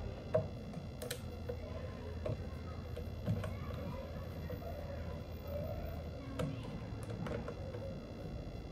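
A small screwdriver turning screws in the plastic cyclone housing of a Dyson V8 stick vacuum: scattered light clicks and faint squeaks and scrapes of screw and plastic, with a few sharper clicks spread through, over a steady low hum.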